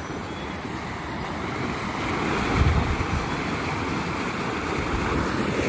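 Floodwater rushing steadily out of a 3-foot culvert after heavy rain, growing a little louder about two seconds in. A brief low rumble of wind on the microphone comes partway through.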